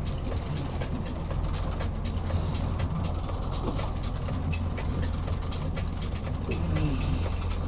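Fishing boat's engine running steadily at slow speed, a constant low hum with a hiss of wind and water over it.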